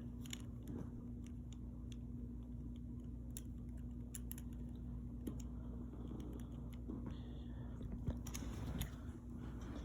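Irregular light clicks and taps of small plastic building pieces being handled, over a steady low hum.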